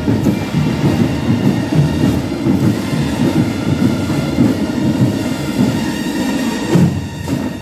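Marching band drums playing a dense, continuous low rumble, with faint held horn notes above; the rumble breaks off about seven seconds in.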